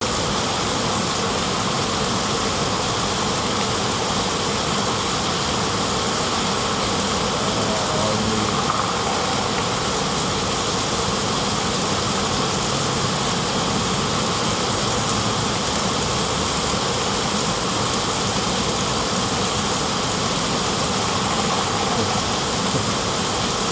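Electric motor of a radio-controlled off-road car running steadily with a constant buzz, under test after being wetted with rainwater to see whether it still works.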